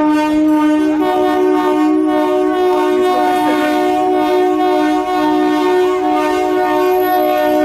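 Indian Railways locomotive air horn held in one long continuous blast, a chord of several steady tones; about a second in, a higher tone joins the chord.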